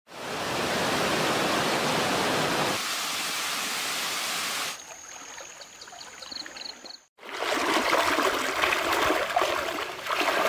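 Rushing stream water, then a quieter stretch with a thin, high, steady tone and a short run of chirps. After a brief dropout about seven seconds in, loud uneven splashing and swishing of legs wading through a shallow river.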